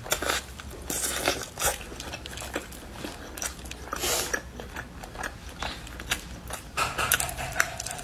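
Close-miked eating of sauce-coated chicken drumsticks: wet biting into the skin and meat, then smacking chews, heard as an irregular run of short sticky clicks.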